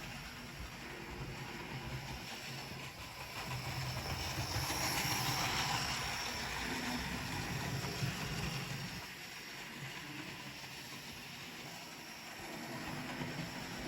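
Hornby 00 gauge Thomas the Tank Engine model locomotive running on its track pulling two coaches: a steady motor hum and wheel rumble, with a hiss that swells in the middle. The low hum drops away about two-thirds of the way through.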